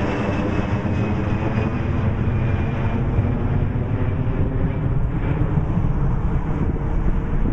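Twin-engine jet airliner climbing away overhead just after takeoff: a steady engine rumble with a faint whine that falls slowly in pitch as it recedes.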